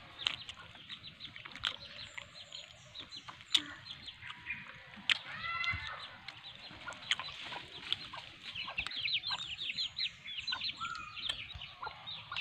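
Chickens clucking and calling, with short high chirps throughout and a quick run of them about three-quarters of the way through. A single sharp click a few seconds in stands out above them.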